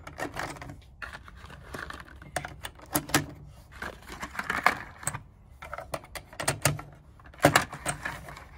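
Irregular clicks and clacks of rifles and magazines being handled, quick runs of small knocks with brief pauses.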